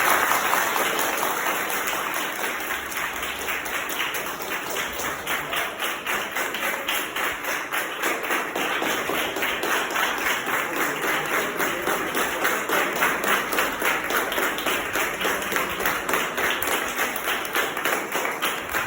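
A crowd clapping in a steady rhythm, about three to four claps a second, over a dense wash of crowd noise.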